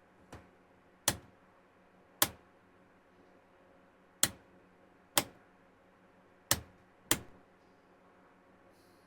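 A power switch being clicked off and on repeatedly: a faint click near the start, then six sharp clicks at uneven gaps of about half a second to two seconds. The switching power-cycles an LED ceiling light whose start-up flashing fault clears after a few cycles.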